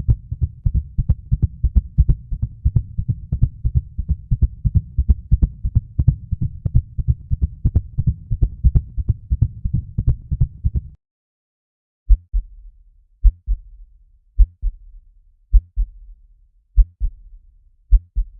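Heartbeat sound effect, a fast, racing beat of low thumps that stops about eleven seconds in. After a second's break a slower, deeper heartbeat effect follows, lub-dub pairs a little over a second apart.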